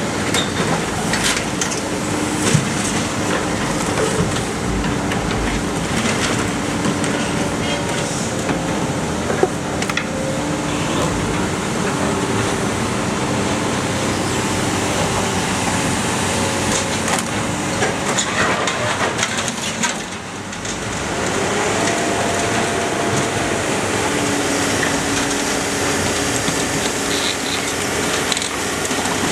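Iron Pack car baler running: its hydraulic power unit drones steadily with a humming tone that steps in pitch as it works. Scattered sharp knocks and cracks come from scrap being crushed, and the noise dips briefly about two-thirds of the way through before picking up again.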